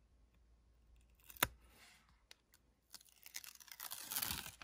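A hobby knife tip picks at the edge of transfer tape with one sharp click, then the tape's backing film crackles and rustles as it is peeled back off the adhesive, loudest near the end.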